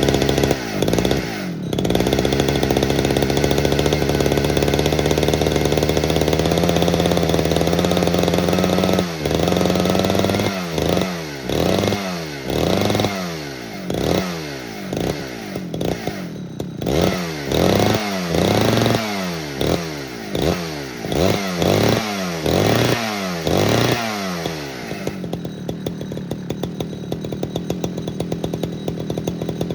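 Poulan 4900 CounterVibe 77cc two-stroke chainsaw engine running, with its carburetor governor removed. It runs steadily for about nine seconds, its pitch creeping slightly higher. It is then revved up and down more than a dozen times in quick succession, and settles to a steady idle near the end.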